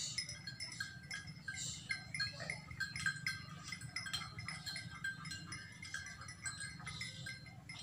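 Caged zebra dove (perkutut) cooing: a run of short, repeated notes.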